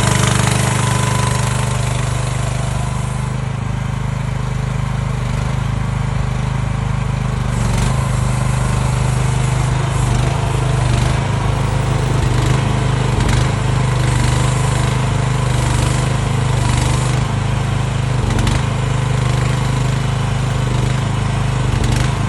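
The single-cylinder 420cc gas engine of a 2024 AGT Industrial H13R mini-excavator runs steadily at a constant speed. From about eight seconds in, short bursts of hissing noise come every second or so over the engine.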